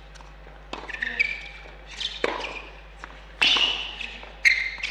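Tennis rally on an indoor hard court: racquets striking the ball and the ball bouncing, a sharp echoing crack about every second, the loudest near the end, with short high squeaks in between.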